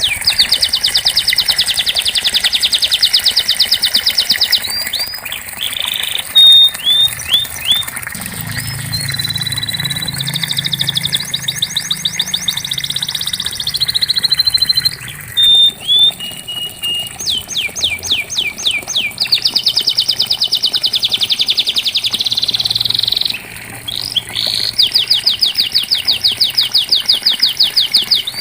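Domestic canary singing, long rolls of rapid repeated notes broken by short sweeping calls, with brief pauses between phrases.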